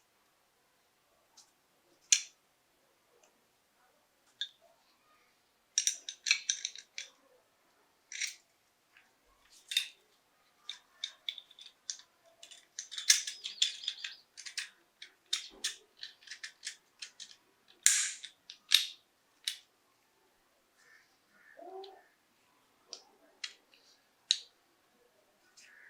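Irregular sharp clicks and short scrapes of small metal pistol parts being handled and worked, busiest in the middle. There is a brief squeak about four-fifths of the way through.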